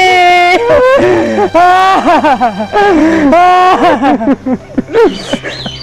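Men laughing hard and long: a drawn-out high whoop at the start breaks into rapid, bouncing bursts of laughter.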